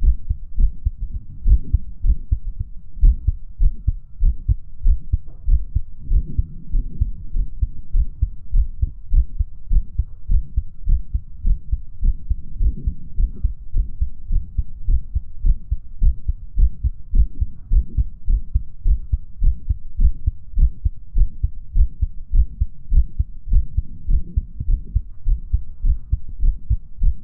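Human heartbeat heard through a hoodie and shirt: a run of low, muffled thumps, slow at rest with skipped beats, and a faint heart murmur behind them.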